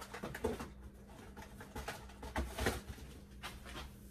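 Quiet rustling and light knocks as snack packages are handled on a wire pantry shelf, with a brief low vocal sound, like a grunt or breath, about two and a half seconds in.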